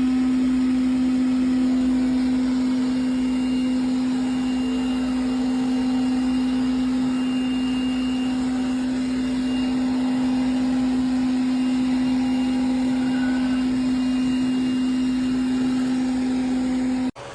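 Eureka E20 Plus robot vacuum running, a steady motor hum holding one pitch with a hiss of suction around it, cutting off suddenly near the end.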